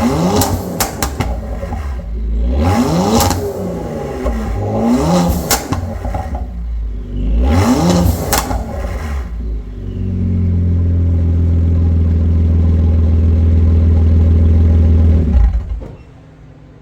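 Genesis G70's twin-turbo 3.3-litre V6 free-revved four times through a tuned exhaust, each blip followed by a string of sharp crackles and pops as the throttle closes: overrun pops from the ECU tune's crackle-and-pop exhaust feature. After that the engine holds a steady note for about five seconds and then cuts off abruptly near the end.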